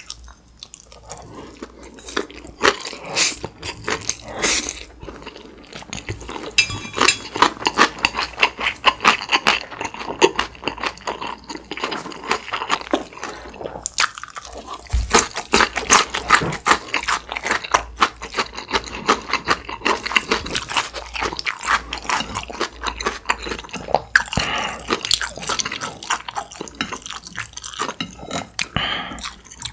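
Close-miked chewing of a big mouthful of Jjapaghetti black-bean instant noodles: wet smacking and crunching in quick, irregular clicks. It is quieter for the first couple of seconds and pauses briefly about 14 seconds in.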